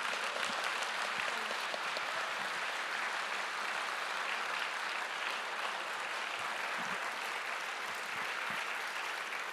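Audience applauding steadily in a large hall: sustained clapping from many hands after a talk ends.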